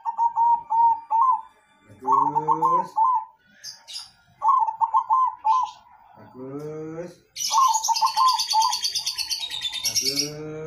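Zebra dove (perkutut) cooing in the 'noklak' song style: four phrases of rapid staccato coos, each about a second long, repeated every two to three seconds. A high, fast chattering overlaps the last phrase and runs on for about three seconds.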